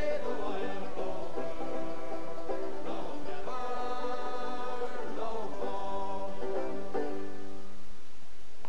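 Background music with held, pitched notes that fades out near the end.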